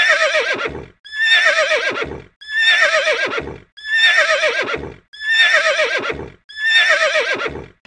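Horse whinny sound effect, the same recorded neigh repeated six times in a row, about one every 1.3 seconds, each a shaky call that falls in pitch.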